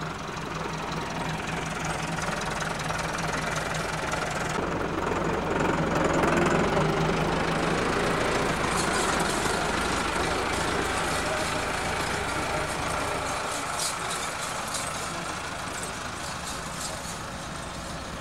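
An engine running steadily with a low hum, with voices in the background.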